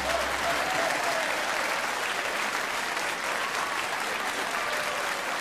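Audience applauding steadily, as the last held notes of a song die away in the first half second.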